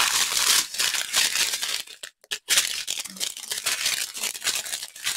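Thin plastic bags crinkling as small packets of diamond painting drills are pulled out of a larger clear plastic bag and handled, with a short break about two seconds in.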